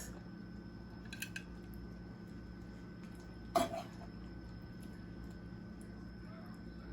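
Quiet kitchen room tone with a steady electrical hum, a few faint light clicks about a second in, and one short, sharp sound about three and a half seconds in.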